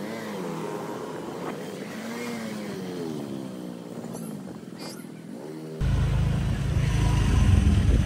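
Vehicle engine running, its note slowly rising and falling as it speeds up and slows. A loud low rumble of road noise cuts in suddenly near six seconds.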